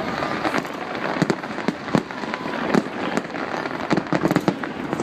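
A large fireworks display: shells bursting in a rapid, irregular series of sharp bangs, several a second, over a continuous din of further explosions.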